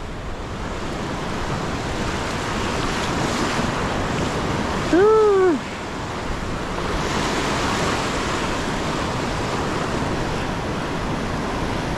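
Gulf surf breaking and washing up the beach, a steady rush with wind on the microphone. About five seconds in, a short cry rises and falls in pitch over the surf.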